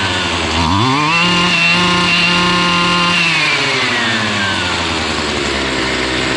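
Husqvarna string trimmer's two-stroke engine revved up about half a second in, held at high speed for about two seconds, then winding down to a steady idle. It runs and takes throttle cleanly now that its clogged carburettor fuel screen is cleaned and its muffler outlet opened up.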